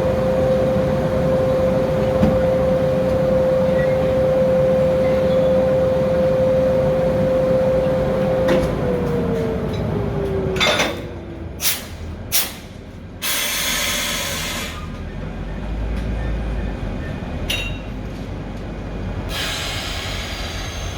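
Railway locomotive with a steady hum that falls in pitch and fades about nine seconds in. This is followed by a few short, sharp blasts of compressed air and longer hisses from the train's air brakes or pneumatics.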